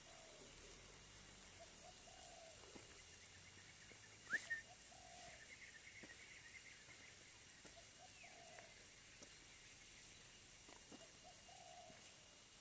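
Faint dove cooing, a soft low call repeated about every three seconds, with two short sharp sounds about four seconds in.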